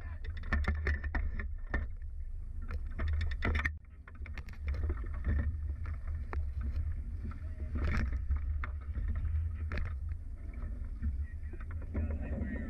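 Splashing and irregular knocks of a bluefin tuna being handled at the side of a small aluminium boat, over a steady low rumble.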